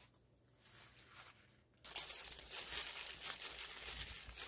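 Thin plastic crinkling and rustling from disposable plastic gloves working soft food by hand. It starts suddenly about two seconds in, after a quiet start.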